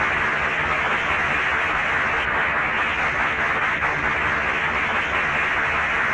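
A crowd applauding, steady and unbroken.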